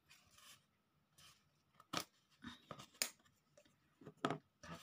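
Thin wooden craft pieces being handled: a short rustle, then a few sharp, scattered clicks and taps of wood.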